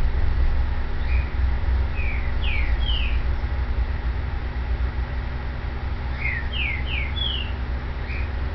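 A bird chirping twice, each time a quick run of four or five short falling notes, over a steady low rumble.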